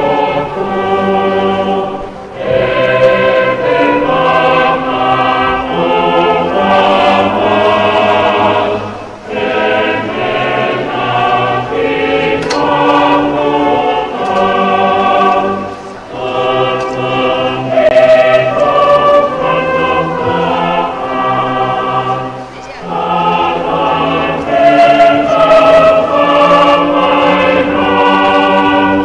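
A choir of many voices singing a hymn in long phrases, with short breaks between phrases about every seven seconds.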